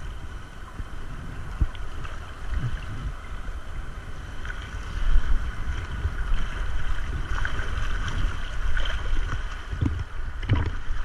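Fast-flowing river water rushing and slapping close around a helmet-mounted GoPro at the water surface, with low buffeting rumbles and a few short knocks near the end.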